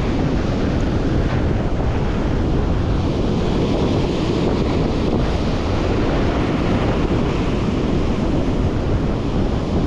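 Ocean surf breaking and washing over rocks, a steady rushing, with wind buffeting the microphone.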